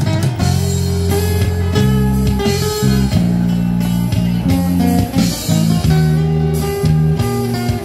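Live band music played on acoustic guitar and keyboard, with held low bass notes under the chords.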